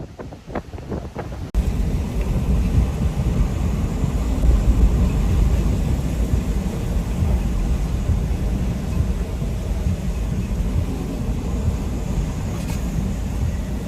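Hurricane-force wind buffeting the microphone: a steady, loud, low rumbling roar that starts suddenly about a second and a half in.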